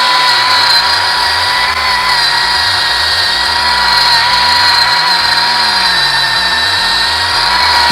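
Harbor Freight cordless electric chainsaw running under load, cutting a notch into a pine trunk. It gives a steady high motor whine whose pitch sags briefly near the start and again near the end.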